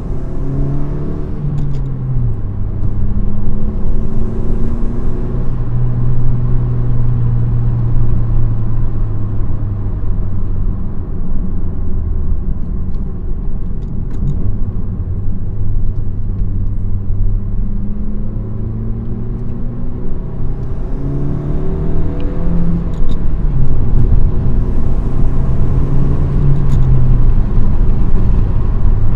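Honda Civic Si's 1.5-litre turbocharged four-cylinder pulling through the gears with a PRL Cobra cold air intake, heard from the cabin with the windows down. The engine note drops at a shift about two seconds in and rises and falls again near the end, with a rushing hiss from the intake and turbo during the pulls.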